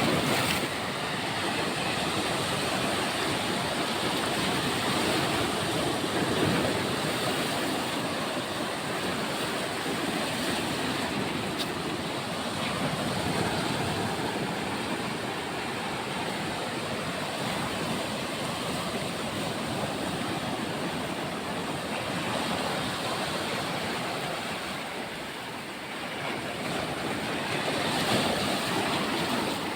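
Sea waves breaking and washing on the shore in a continuous rush that swells and ebbs slowly, with a dip about five seconds before the end and a surge soon after.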